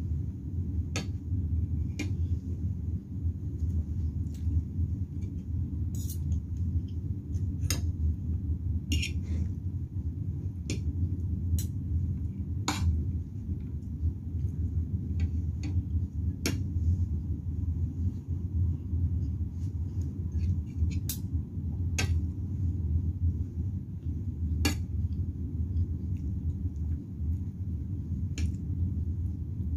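Metal spoon and fork clinking and scraping against a ceramic plate of rice, a dozen or so sharp, scattered clinks, over a steady low rumble.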